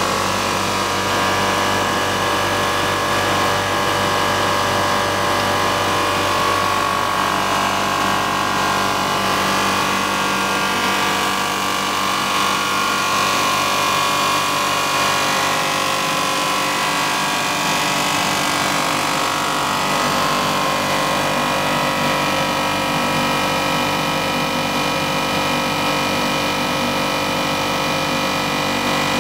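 Blown film extrusion line running: a steady machine hum with several constant tones that hold unchanged throughout.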